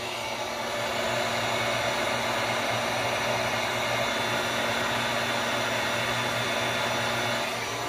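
Electric heat gun blowing steadily, a rush of air over a low motor hum, drying water-based wood dye on carved wood. It cuts off near the end.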